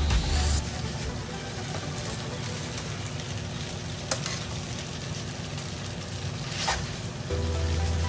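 Noodles and chicken sizzling in a hot frying pan as they are tossed with metal tongs, with two short clicks of the tongs against the pan.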